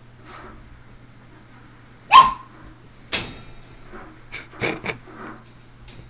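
A Siberian Husky puppy gives one sharp, loud bark about two seconds in. About a second later comes a sharp clatter, then a few quick knocks and faint ticks.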